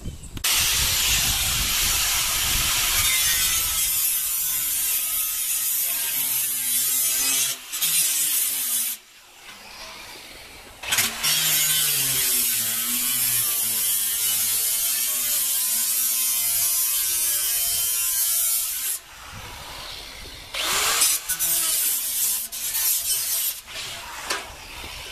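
Electric power saw cutting sheet tin: two long cuts of about eight seconds each with a short pause between, the motor's pitch wavering under load, then a few short bursts near the end.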